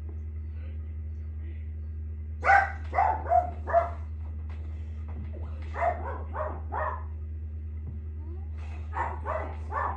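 A dog barking in three runs of three or four quick barks each: about two and a half seconds in, again around six seconds, and near the end.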